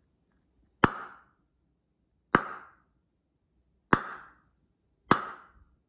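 Four sharp, hollow pops about a second or more apart, each ringing briefly before fading.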